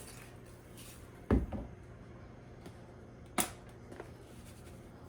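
Two brief knocks of kitchen items handled on a counter while seasoning steak: a dull knock about a second in and a sharper tap about two seconds later, over a low steady hum.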